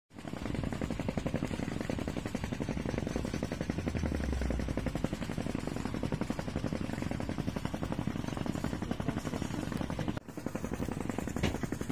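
Boat engine running steadily, a rapid, even low pulsing.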